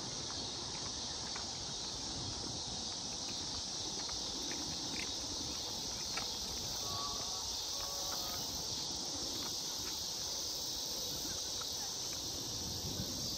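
Steady, high insect chorus from crickets or similar insects, with faint scattered ticks and a few brief chirps partway through.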